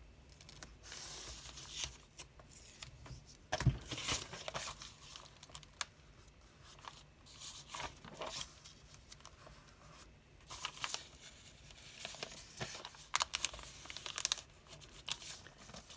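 Masking tape being torn and pressed onto old dictionary paper, with the pages rustling and crinkling as they are handled and folded. The sounds come in irregular bursts, with a sharper knock about four seconds in.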